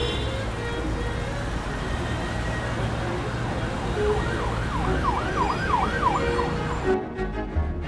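Street traffic noise with an emergency vehicle's siren yelping rapidly up and down, about three sweeps a second, for a couple of seconds from about four seconds in. Music comes back in abruptly near the end.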